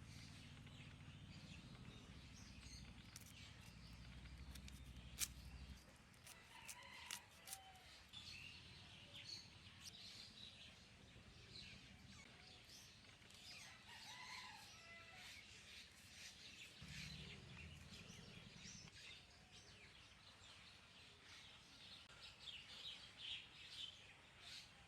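Faint outdoor ambience of small birds chirping and chickens calling, with a low rumble in the first few seconds and again briefly past the middle.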